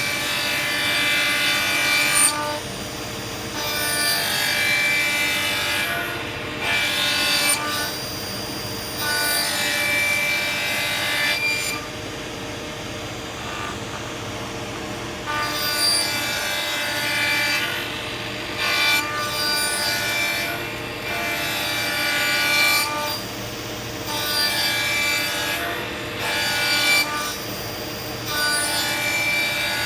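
Horizontal cutting saw running steadily, biting into the workpiece again and again in rasping cuts of one to three seconds each, with quieter stretches of the machine running between.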